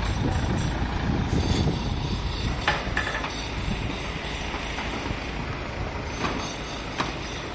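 Truck crane's engine running steadily with a low rumble while lifting, with a few short sharp knocks about three seconds in and again near the end.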